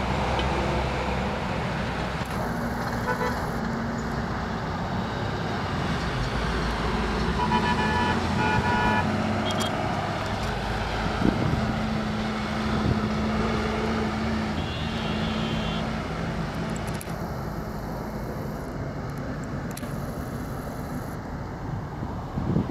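Road traffic noise: a steady vehicle engine hum, with a few short horn toots partway through.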